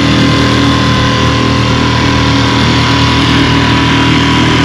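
Small outboard motor on an inflatable dinghy running steadily at constant speed under way, with the rush of water from its wake.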